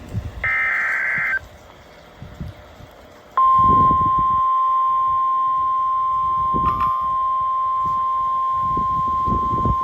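NOAA Weather Radio emergency alert: a burst of about a second of the warbling digital data tones that encode the alert header, then, after a short gap, the steady single-pitch Warning Alarm Tone comes on about three seconds in and holds. This tone announces that a warning message is about to be read.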